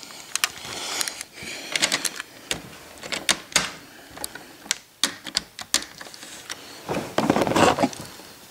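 Handling noise from an HO-scale model locomotive being picked up and turned around on its track by hand: irregular light clicks and knocks of plastic. About seven seconds in there is a longer, louder rub.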